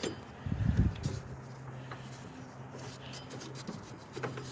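Light rubbing and handling noises on the snow blower's drive parts, typical of oil or grease being worked onto the drive disc, with a few low knocks about a second in. A steady low hum sits underneath.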